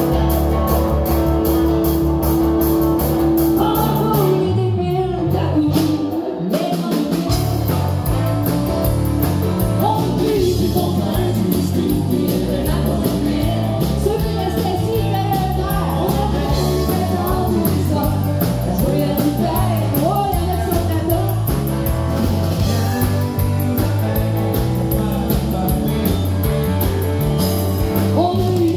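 Live country-rock band with a woman singing lead over guitar, bass and drums. The drums and bass drop out briefly about five seconds in, then the band comes back in under the voice.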